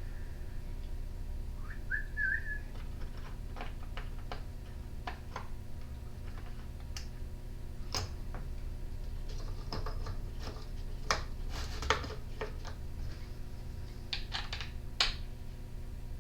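Scattered light clicks and taps of small hand tools and parts being handled on a workbench, over a steady low hum. A short wavering whistle comes about two seconds in.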